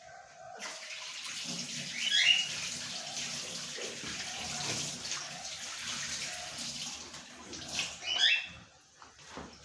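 Water running from a kitchen tap: it comes on about half a second in and stops near the end, with two brief sharper sounds, one about two seconds in and one near the end.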